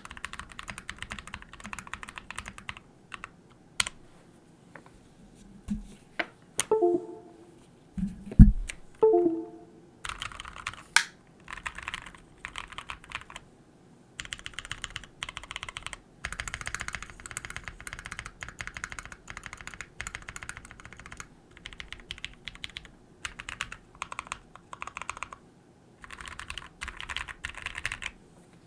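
Typing on a custom mechanical keyboard with a titanium plate and Naevies switches: quick runs of keystrokes with short pauses between them. Between about six and nine seconds in there are a few louder, deeper knocks.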